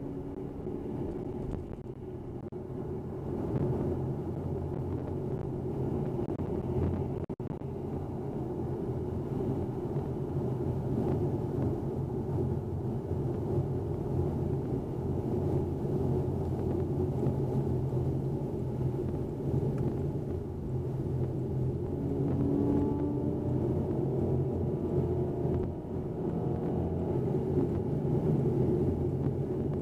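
2010 Acura TSX's K24 four-cylinder at freeway speed, heard from inside the cabin: a steady low engine and intake drone through a CT-Engineering Icebox cold-air intake, mixed with road noise. It gets somewhat louder about three seconds in.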